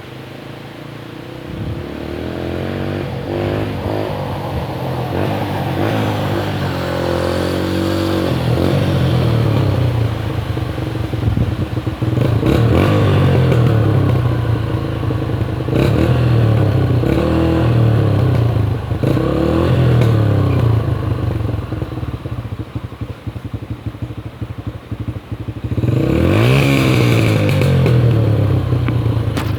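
A 2004 Yamaha dirt bike's engine revving up and down over and over as it is ridden through mud, with a sharp rising rev near the end.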